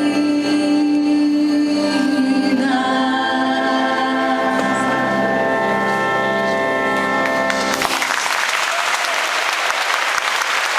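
A woman singing through a microphone over sustained musical accompaniment, holding a long final note. The music ends about eight seconds in, and the congregation breaks into applause.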